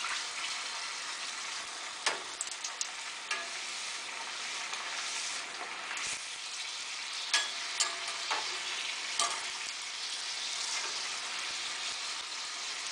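Semolina puris deep-frying in hot oil with a steady sizzle. A metal slotted spoon pressing and turning them clinks sharply against the stainless steel saucepan a handful of times.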